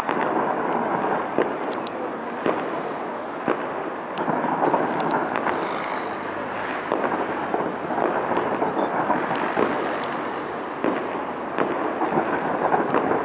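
Fireworks going off: a continuous crackling rumble with sharp bangs every second or so, and a quicker run of bangs near the end.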